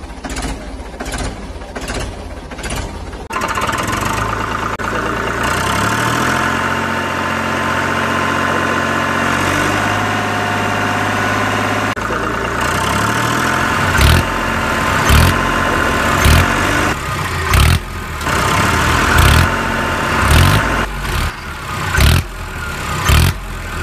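Tractor engine sound, running steadily with its pitch stepping up and down, then revved in short surges about once a second through the second half. A few sharp clicks come before the engine starts.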